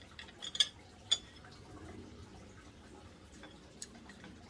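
Cutlery clinking against a plate: two sharp clinks in the first second or so, then a few faint ticks.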